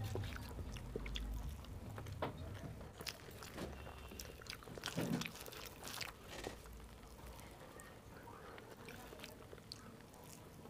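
Close-miked chewing with wet lip smacks and clicks of a person eating rice, along with fingers squishing and mixing rice and saag on a steel plate. The smacks are busiest in the first half and thin out later.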